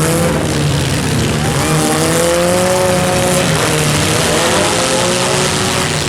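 Engines of several compact demolition derby cars revving hard over a steady loud din, one engine's pitch rising and falling about two to three seconds in.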